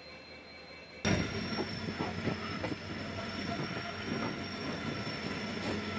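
Quiet ambience with a faint steady whine, then, about a second in, a sudden loud rail noise: train wheels knocking over the rail joints, with a steady high-pitched squeal of wheels on rail, alongside container freight wagons.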